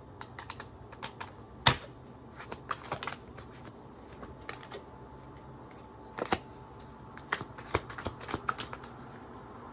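Tarot cards being handled: irregular light clicks and snaps of card stock against cards and the table. The two sharpest come just under two seconds in and again a little past the middle.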